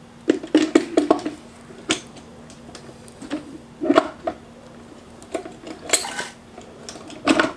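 Steel transmission gear shafts clinking and knocking against each other and the aluminium case of a Honda B-series manual gearbox as they are worked into place by hand. A quick run of metallic knocks comes in the first second or so, then single clinks every second or two.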